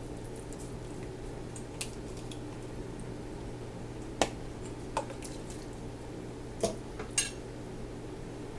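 Kitchen utensils clinking as broth is strained into a glass canning jar: a metal mesh strainer, plastic funnel and measuring cup tapping against each other and the jar, several sharp clinks, the loudest about four seconds in, over a steady low hum.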